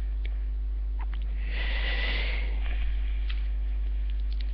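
Steady electrical mains hum picked up by a headset microphone, with a sniff into the mic about a second and a half in that lasts about a second. A few faint clicks.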